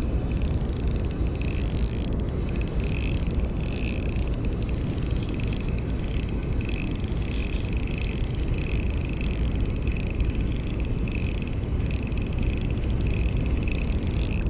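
Ryobi Smurf 1000 spinning reel cranked steadily, its gears whirring as a hooked squid is reeled in, under a steady low rumble.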